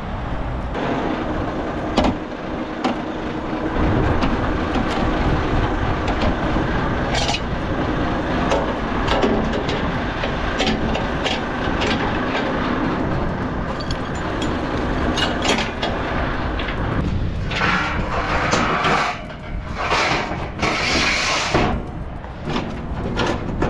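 Car-transporter truck running steadily while the trailer's decks are shifted, with scattered metal clicks and knocks. Several short hissing bursts come near the end.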